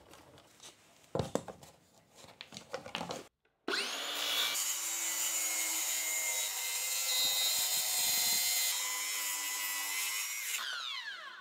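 A few clicks and knocks as a clamp is set on the plywood. About four seconds in, a cordless circular saw spins up and runs steadily as it cuts along the 1/4 inch plywood against the clamped plywood fence, then winds down with falling pitch near the end.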